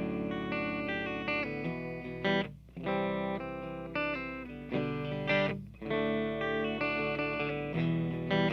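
Electric guitar playing clean, ringing chords on the bridge P90 pickup of an Epiphone Les Paul Special I through a Marshall Origin 50 amp, in phrases of a second or two with short breaks between them, over a low steady amp hum.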